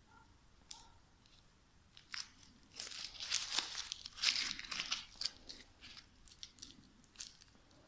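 Paper being crumpled and handled, a run of crinkling crackles lasting a few seconds, loudest in the middle.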